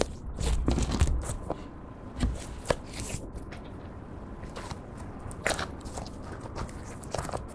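Clear slime being kneaded and squeezed by hand with lipstick worked into it, giving irregular sticky clicks and crackles. These are busiest and loudest in the first second or so, then come only now and then.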